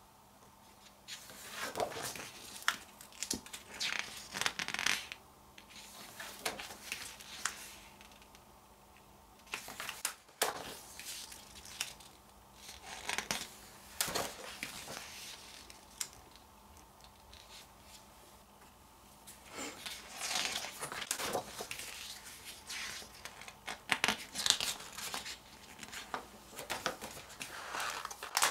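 Packaging being torn open and crinkled by hand, in about six crackly bursts with quieter pauses between them.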